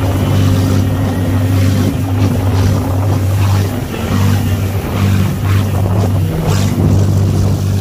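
Motorboat engine running at speed with a steady low drone, while water rushes and sprays off the hull in repeated splashes.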